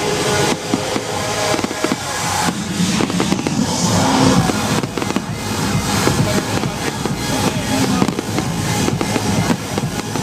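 Fireworks display: a rapid stream of bangs and crackles over loud music.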